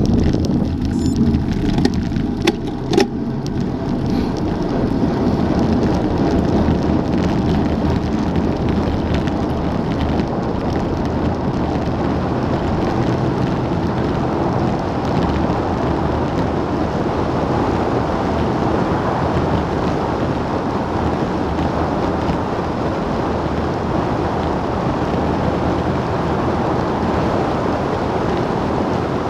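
Wind rushing over an action camera's microphone on a road bike descending at speed, a steady noisy rush that builds as the bike speeds up past 40 mph. About two to three seconds in there are a few sharp clicks.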